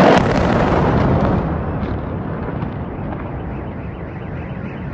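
Missile-strike explosion: a sudden loud boom that dies down into a rumble over about a second and a half. A car alarm wails in a repeating pattern underneath.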